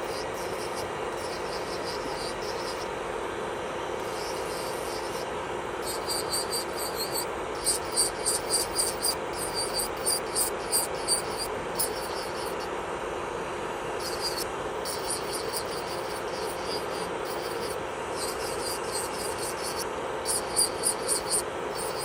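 Electric nail drill (e-file) running at a steady speed with a constant hum. From about six seconds in, the bit grinds against the nail in short repeated strokes, about two a second, with a high scratchy hiss on each pass. It pauses briefly near the middle, then starts again.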